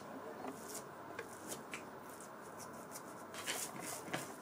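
Faint rubbing and soft taps of hands rolling a log of semolina dough on a tabletop, a little stronger about three and a half seconds in.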